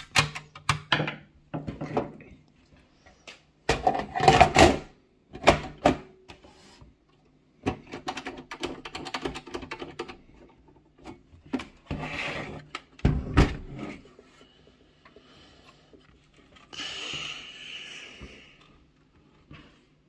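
Metal small form factor PC case (Fujitsu Esprimo) being handled and closed up: a run of knocks, clicks and scrapes, the loudest about four and about thirteen seconds in, with a longer scraping sound about seventeen seconds in.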